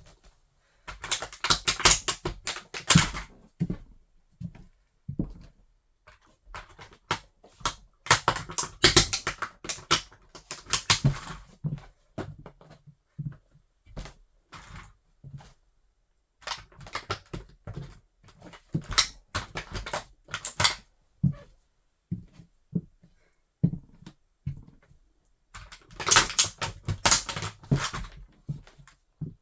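A toy car crunching and cracking under a wedge sandal as it is crushed, in four bursts of rapid snapping and crackling with short pauses between them.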